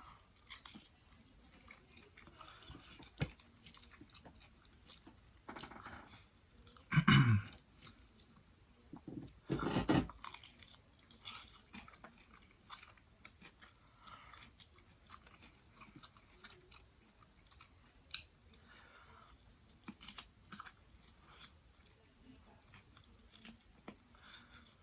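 Close-up chewing and crunching of fried chicken, irregular and moist, with a few louder crunches about six, seven and ten seconds in.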